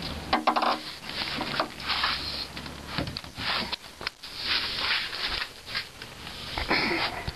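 A framed glass pane being handled and worked with a small glass cutter: a series of short raspy scrapes about a second apart, with a few light knocks.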